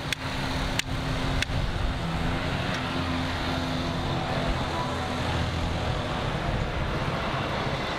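Motor vehicle engine running with a steady low drone that swells about three seconds in, over street noise. A few sharp taps come in the first second and a half.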